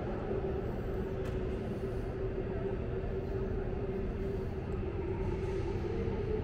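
Steady ambience of a large stone church interior: a low rumble with a held hum, unchanging throughout.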